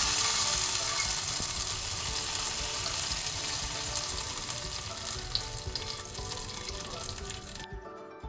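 Food frying in hot oil in a pan: a steady sizzling hiss that cuts off suddenly near the end, with soft background music underneath.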